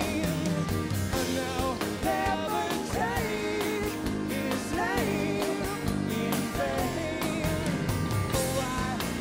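Live rock band playing full out: electric guitars, bass, drums, acoustic guitar and accordion, with a wavering lead line over a steady beat.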